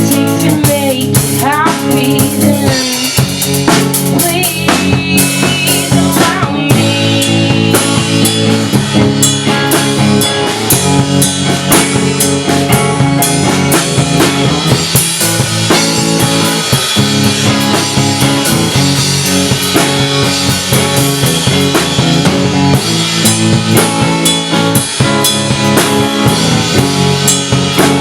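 A two-piece band of guitar and drum kit playing a song together, the drums keeping a steady driving beat under the guitar.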